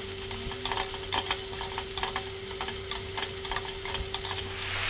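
Sliced mushrooms, bell peppers and carrots sizzling in hot oil in a frying pan while a wooden spatula stirs them, with frequent light knocks and scrapes of the spatula against the pan over a steady hiss. A faint steady hum sits underneath.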